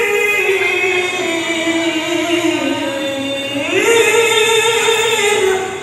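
A male qari reciting the Quran in a high, drawn-out melodic style. The phrase sinks slowly in pitch, climbs back up a little past the middle, and is held before it ends.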